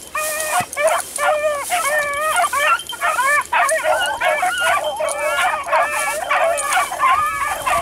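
Beagles baying in a steady run of overlapping calls, several voices at once, as hounds in full cry on a scent trail.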